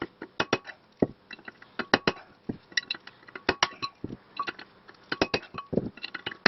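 Irregular run of hammer blows on steel, each with a short metallic clink, driving the old front wheel bearing out of a Mercedes W203 wheel hub.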